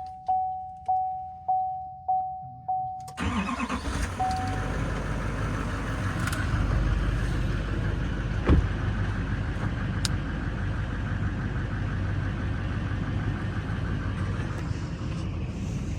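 A vehicle's key-on warning chime dings steadily, about every half second, then the engine cranks and starts about three seconds in and settles into a steady idle as it warms up. A single sharp knock sounds about halfway through.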